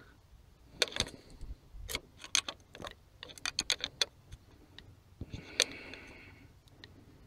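A long screwdriver ticking, tapping and scraping against the plastic wiring connector of the coolant temperature sensor as it is pried at; the connector is tight. Irregular sharp clicks, with a short scrape about five and a half seconds in.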